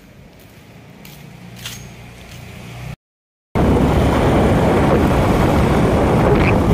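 Quiet street ambience with a few faint clicks, broken by half a second of dead silence, then a loud steady rush of wind and road noise from riding on the back of a moving two-wheeler.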